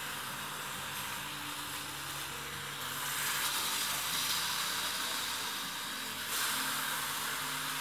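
Corn-tortilla tacos, basted with cheese drippings, sizzling steadily on a hot comal. The sizzle grows louder about three seconds in as a taco is flipped with a spatula, then eases slightly after about six seconds.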